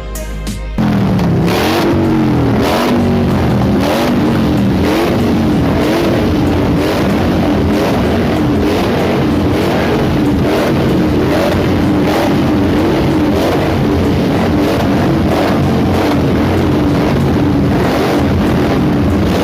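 Superbike engine revving hard, its pitch rising and falling again and again. It starts suddenly about a second in, after a short stretch of electronic music.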